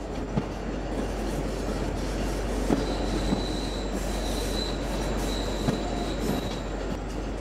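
Train running along the rails: a steady rumble with a few irregular knocks from the wheels, and a faint high wheel squeal through the middle as it rounds a curve.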